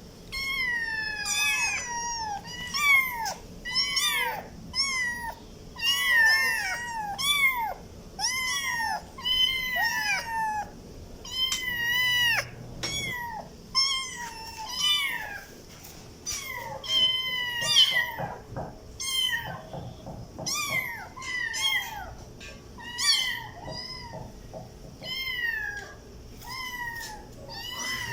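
Kittens meowing over and over, in short high-pitched cries that rise and fall, one or two a second with brief pauses.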